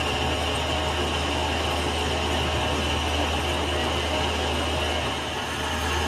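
Metal lathe running steadily: a low motor hum with a steady high whine above it.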